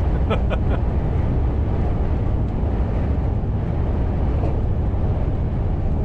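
Steady low rumble of a Mercedes-Benz lorry's engine and tyres heard from inside the cab at motorway speed, with wind noise around the cab in strong gusty winds.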